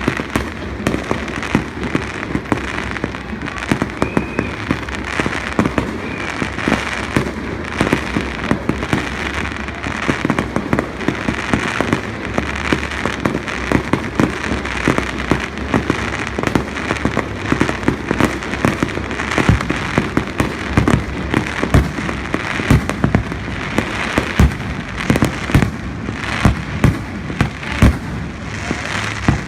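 Fireworks display going off: a continuous dense stream of bangs and crackling, many reports a second with no pause.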